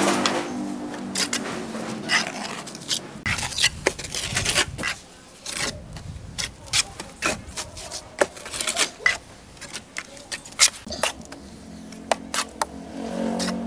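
Hand work scraping and rubbing, broken by many sharp clicks and taps at uneven intervals. A low hum comes in near the end.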